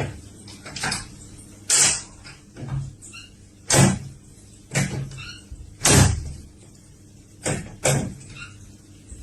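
A series of short knocks and scrapes, about eight of them at irregular intervals, roughly one a second.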